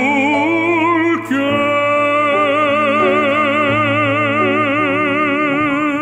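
Baritone singing the closing phrase of a Korean art song in operatic style with wide vibrato, over piano accompaniment. A short break about a second in, then one long held final note.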